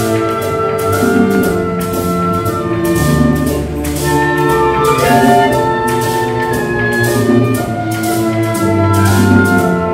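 Symphony orchestra playing a symphonic merengue arrangement: long held notes from the strings and winds over a steady, regular percussion beat.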